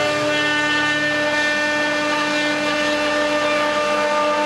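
6090 CNC router spindle running at speed as a round-nosed bit cuts a groove into a pine board: a steady whine of many high tones over the noise of the cut.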